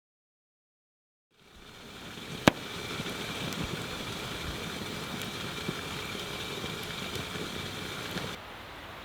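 Large bonfire of burning wood, crackling steadily under a hiss, with one sharp pop about two and a half seconds in. It fades in after a second or so of silence and drops to a quieter hiss near the end.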